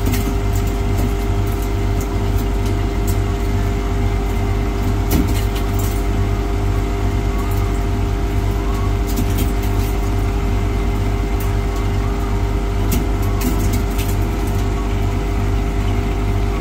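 Ice machine running with water streaming over its stainless-steel freezing cylinder: a steady machine hum with a low throb pulsing a couple of times a second, a wash of water noise and scattered light clicks.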